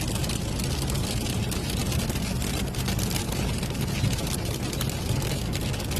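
Water from melting hail running into a street storm drain: a steady rushing noise with a low rumble and frequent light crackles.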